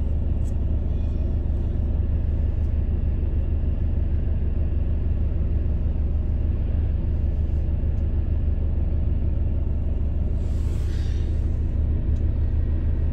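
Steady low rumble of a car driving, heard from inside the cabin, with a brief hiss about ten and a half seconds in.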